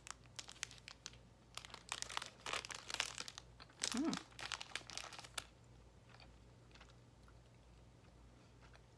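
Crinkling of a plastic fruit-snack pouch being handled, with a brief closed-mouth "mm" about four seconds in. The crinkling stops about halfway through.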